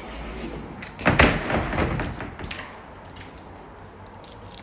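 Laundry cupboard doors being shut: a thud about a second in, followed by a brief clatter of smaller knocks.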